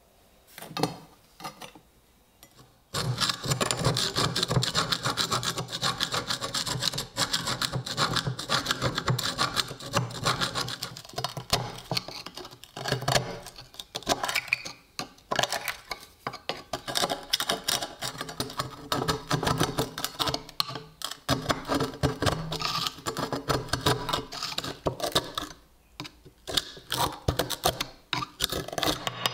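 A steel chisel scraping and chipping thick, crusted rust off the iron hilt of a WWI German Ersatz bayonet: rapid, dense scraping strokes that start about three seconds in and go on with brief pauses. Before that, only a few light clicks.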